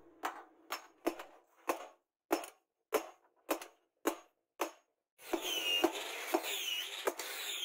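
Hand hammer striking a red-hot leaf-spring steel knife blade on a steel post anvil, a sharp blow about twice a second. About five seconds in, a steady hiss with high whistling chirps joins behind the blows.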